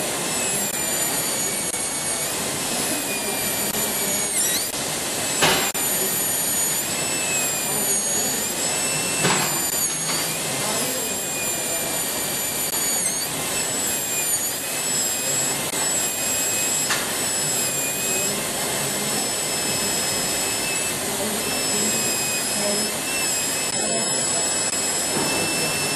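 High-speed air-turbine dental handpiece running continuously with water spray, a high whine over a steady hiss. The whine dips in pitch several times as the bur bears on the abutment tooth under cutting load.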